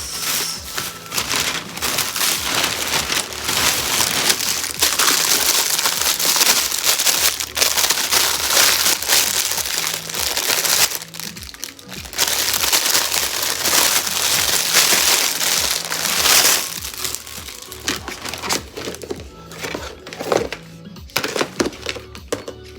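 Plastic packaging crinkling loudly as kitchen items are unwrapped, with background music that has a steady low beat underneath. The crinkling breaks off briefly about 11 seconds in, then comes back and grows fainter over the last few seconds.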